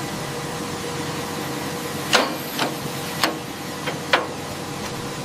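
Five sharp knocks of hand tools working on an aircraft landing-gear strut, starting about two seconds in, over a steady hiss with a faint steady hum.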